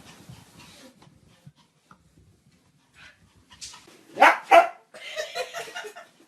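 A dog barking twice in quick succession, about four seconds in.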